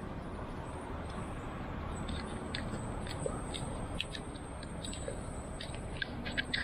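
Steady low rumble of street and riding noise picked up by a bicycle-mounted action camera, with scattered short, high ticks.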